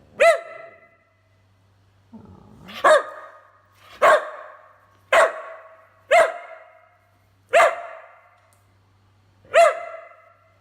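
Whippet barking: seven sharp single barks, one to two seconds apart, with a low grumble rising into the second bark.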